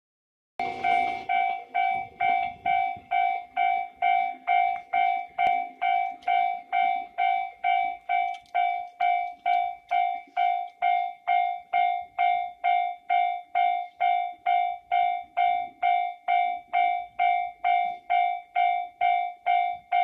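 Japanese level-crossing warning bell ringing in an even, repeating ding, about twice a second, starting about half a second in: the signal that a train is approaching the crossing.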